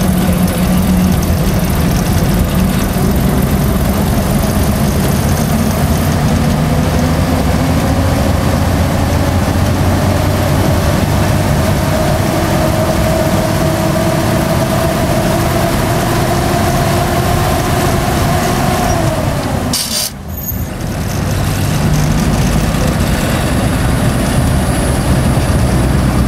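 Galloping Goose #7 rail motorcar running along narrow-gauge track, heard from on board at the front: a steady engine and running noise, with a whine that climbs slowly in pitch from about ten seconds in. A bit past two-thirds through, the sound breaks off abruptly for a moment, then the steady running picks up again.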